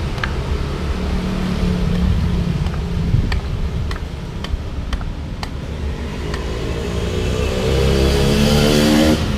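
Steady low traffic rumble on a street, with a few sharp knocks in the first half. Near the end a passing vehicle's engine revs up, rising in pitch, then stops suddenly.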